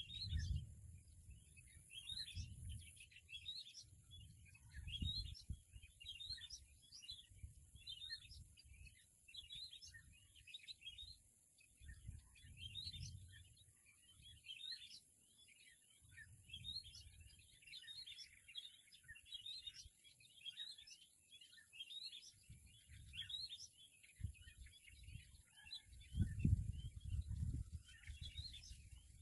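Many small birds chirping in quick, overlapping short calls throughout, over a steady high hiss. Irregular low thumps and rumbles come and go, the loudest of them a few seconds before the end.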